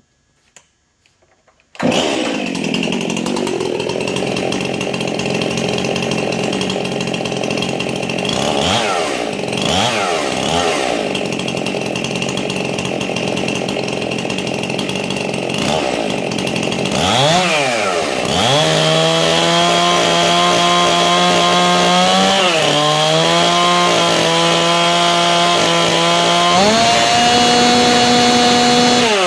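Modified Stihl MS 261 two-stroke chainsaw, with a decked cylinder, reworked porting and a custom exhaust, running at high revs without cutting. It comes in suddenly about two seconds in, dips in speed and picks back up several times, then holds a steady high whine that shifts pitch twice near the end.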